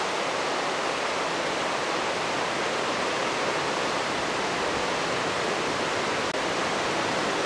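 Fast, boulder-strewn mountain river rushing over rocks and rapids, a steady, even rush of water with no breaks.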